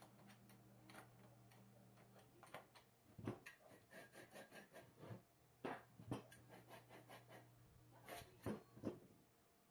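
Faint hand-work sounds on workshop parts: short, irregular scrapes and knocks, a few louder ones in the second half, over a low steady hum.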